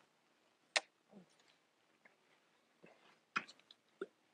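A few faint, sharp clicks and taps spaced out irregularly, the loudest about a second in and about three and a half seconds in: fishing reel and tackle being handled after a cast.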